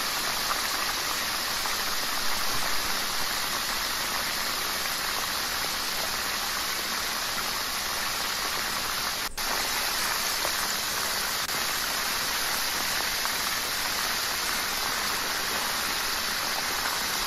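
Minced lemongrass, garlic and shallot sizzling in hot oil in a nonstick wok as a wooden spatula stirs them: a steady hiss, broken by a brief drop-out about nine seconds in. This is the aromatics being fried until fragrant.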